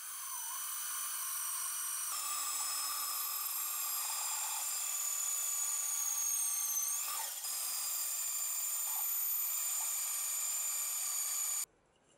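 Band saw running with a steady high-pitched whine as its blade cuts a chestnut-wood handle block. The pitch wavers briefly partway through, and the sound cuts off abruptly near the end.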